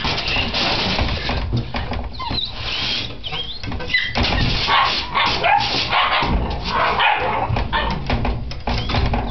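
Puppies whining in short, high-pitched whimpers, several times, over continuous scuffling and rubbing as they shift against the pen wall.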